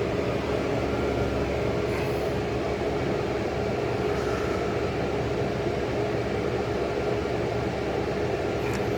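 Old General Electric Carry Cool window air conditioner running with a steady hum and a constant whine.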